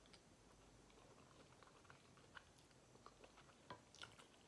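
Faint chewing of creamy alfredo pasta: soft wet mouth clicks scattered throughout, a few sharper ones near the end.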